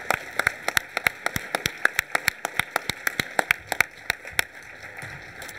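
Audience applauding: a dense patter of clapping with one pair of hands clapping loud and sharp close to the microphone, thinning out and fading near the end.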